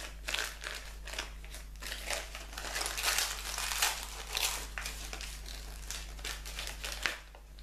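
Gift wrapping crinkling and rustling in irregular bursts as a small package is unwrapped by hand, dying down near the end.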